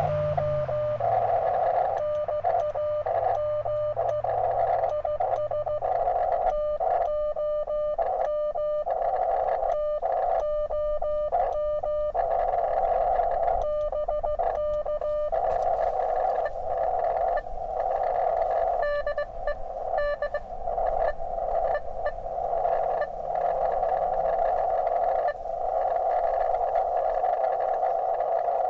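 Morse code (CW) from a portable HF ham transceiver: a single steady tone keyed in dots and dashes, sending a signal report, location and name (K4IA DE N9YO, UR RST 5NN, QTH MO, NAME TOM, BK). After that, a narrow band of receiver hiss carries a brief, weak reply that is too hard to copy.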